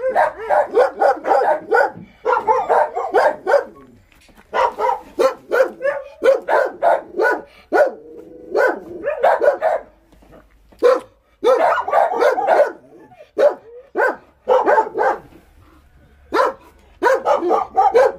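Dansung dogs, a Korean hunting breed, barking in rapid volleys of short barks, with brief pauses between volleys.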